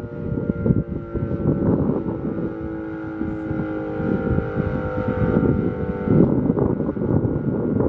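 Decot Model 50 electromechanical siren sounding its noon test at a steady pitch, a chord of several held tones. Heavy wind buffets the microphone throughout.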